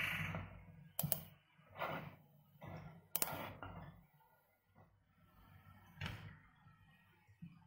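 Faint computer mouse clicks: a sharp click about a second in and another near three seconds, with a few softer short knocks between.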